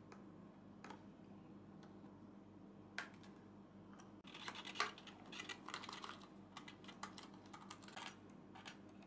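Faint small clicks and rattles of tweezers and a soldering iron against metal pot casings and wiring as an Orange Drop capacitor is desoldered from a guitar's tone pot; a few isolated clicks at first, then a busy run of them from about four seconds in, over a low steady hum.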